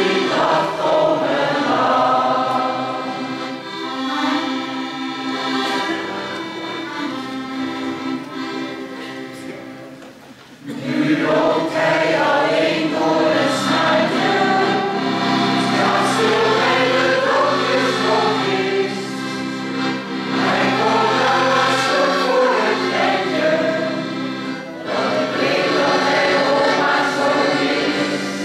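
Mixed choir of men and women singing a Dutch smartlap, a sentimental popular song. The singing fades down just before ten seconds in and comes back in loud a moment later.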